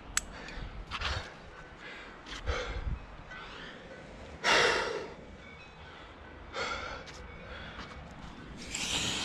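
A rock climber's hard breathing while laybacking up a crack: sharp exhalations and gasps every second or two, the loudest about halfway through. A single light click comes right at the start.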